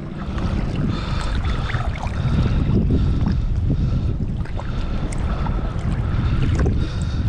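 Wind rumbling on the microphone on an open sea kayak, with faint high tones that come and go every second or so.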